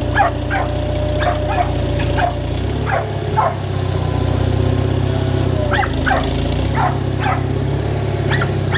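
A dog barking repeatedly in short, irregular runs over the steady low rumble of an engine running.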